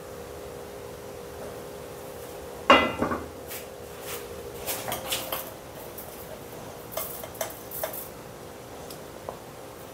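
A metal frying pan set down on a gas stove's grate with a loud ringing clank, followed by several lighter clinks and taps of kitchen things being handled.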